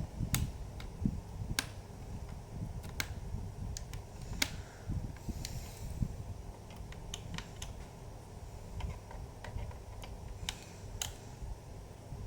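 Irregular light clicks and taps of a small screwdriver and fingers working screws out of a laptop's plastic casing.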